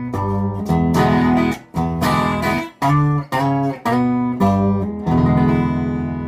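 Hollow-body guitar strummed in short, cut-off chords, about two a second with sharp gaps between them, then a final chord about five seconds in left to ring and slowly fade.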